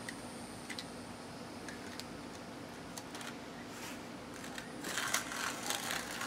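Box cutter blade slicing along the fibrous midrib of a fresh banana leaf laid on concrete, a rough irregular scraping that grows louder about five seconds in. A few faint clicks and a low steady hum come before it.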